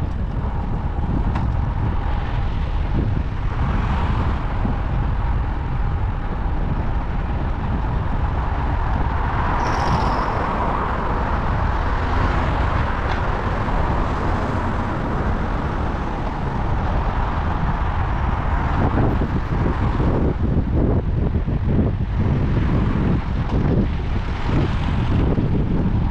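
Wind rumbling on the microphone of a moving bicycle. Road traffic swells and fades several times as vehicles pass.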